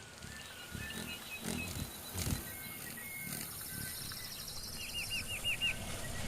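Wild animal sounds: short high chirping and whistling calls, with a quick run of five repeated calls near the end, over a low rumble.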